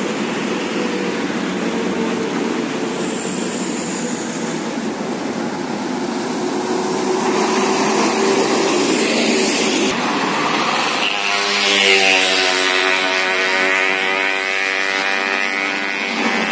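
Two large intercity coaches passing close one after the other, with diesel engines running and tyres hissing on the road. The noise swells as the first coach goes by, and a steady, many-toned drone sounds for the last five seconds as the second coach comes up.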